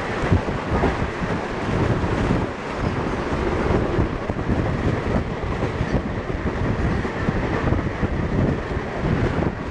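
Passenger train running at speed, heard at an open coach window: a steady, loud rumble and clatter of wheels on rail, thrown back by a long rake of open goods wagons passing close alongside on the next track.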